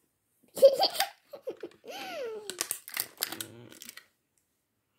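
A girl laughing for a few seconds, with light clicks from clear plastic toy packaging being handled.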